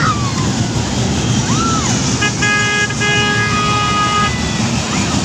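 A horn toots about two seconds in: two short blasts and then one steady held note of about a second and a half, over loud, steady background noise.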